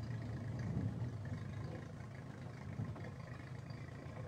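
Motorboat engine running steadily, a low, even hum.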